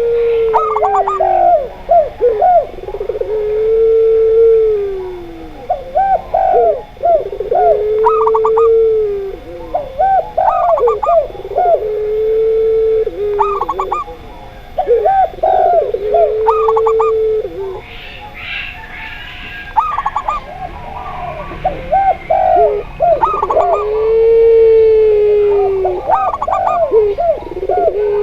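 Doves cooing together: zebra dove, spotted dove and Barbary dove (puter) calls overlap. A long, low, arched coo recurs every few seconds between quick, stuttering, higher coo notes. A brief noisy chirp comes about two-thirds of the way in.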